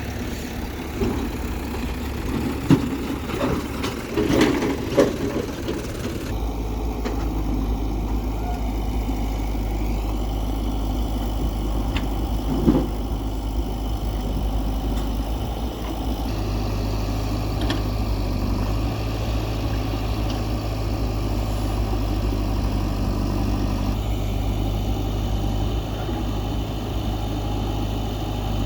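Heavy diesel engine running steadily at low speed, with a few clanks and knocks in the first six seconds and one more near the middle. About six seconds in, the engine note settles into a steadier, deeper hum.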